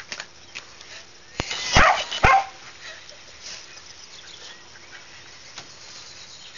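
Pembroke Welsh corgi giving two quick barks close together about two seconds in.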